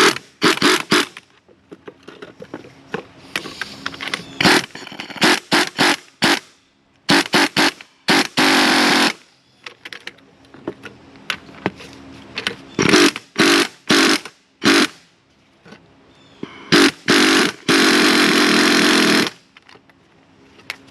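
Impact wrench run in repeated short bursts and a few longer runs, driving the threaded rods of a coil spring compressor to compress a strut's coil spring. The longest run, about a second and a half, comes near the end.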